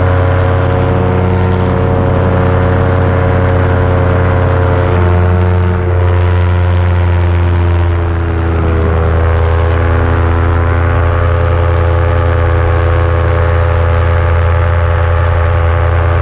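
Paramotor engine and propeller running steadily in flight, a loud low drone. Its pitch shifts slightly and its level dips briefly about halfway through.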